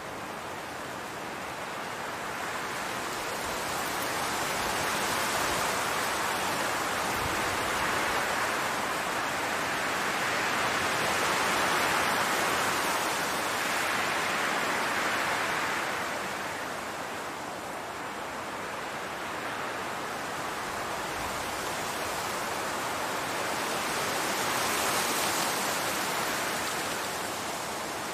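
Wind blowing across a field of tall grass: a steady rushing hiss that slowly swells and eases, with two long gusts.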